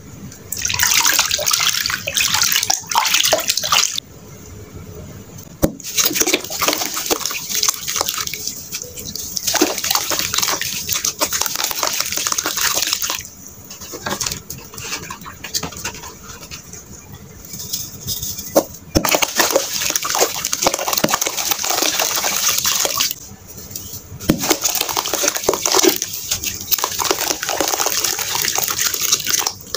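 Water splashing and sloshing as powdery sand is crumbled and mixed into it by hand, in long noisy stretches broken by a few quieter pauses.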